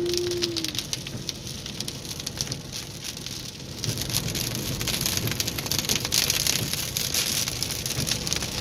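Rain pelting the car, heard from inside the cabin as a dense patter of drops that grows louder about four seconds in.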